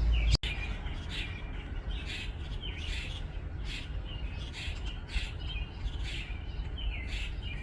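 House sparrows chirping: short repeated cheeps, about one or two a second, over a low steady background rumble. A louder low rumble cuts off abruptly about half a second in.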